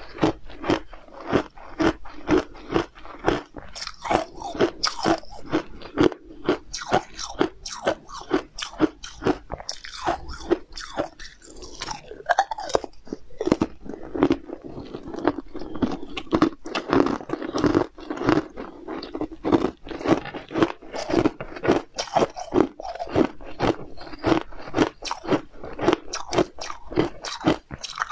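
Close-miked biting and crunching of a translucent candy disc, with rapid repeated crunches and chewing throughout.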